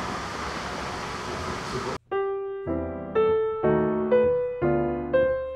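A steady hiss for about two seconds, then an abrupt cut to a slow, clean piano melody of single notes, about two a second.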